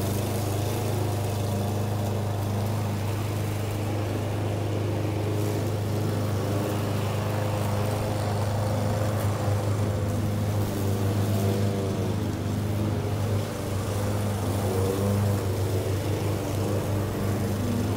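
Walk-behind gas lawn mower engine running steadily while mowing, its hum wavering slightly in pitch about halfway through.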